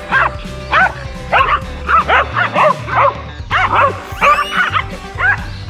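Small Yorkshire terrier barking in a rapid string of high-pitched yaps, about two to three a second, at a much larger dog in play. Background music runs steadily underneath.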